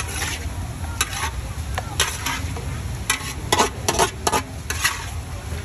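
Metal spatula scraping and clanking against a large steel wok as food is stir-fried, with sizzling. The strokes come about once a second at first and come faster in the second half, over a steady low rumble.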